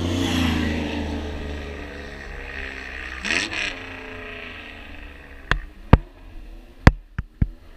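A motor vehicle goes past fast at close range. Its engine note drops in pitch as it passes and fades, and there is a brief second burst of engine sound about three seconds in. Several sharp knocks come near the end.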